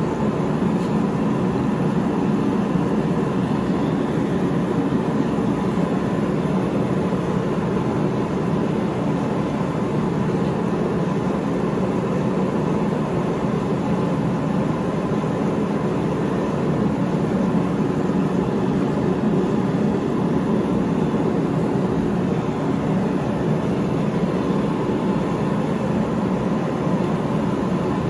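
Steady blowing roar of a forge fire or forge burner, running evenly with no hammer blows.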